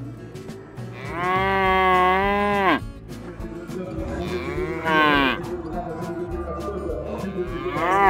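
Cattle mooing: a long, loud moo about a second in that drops in pitch as it ends, a shorter moo around the middle, and a third that starts near the end and falls in pitch.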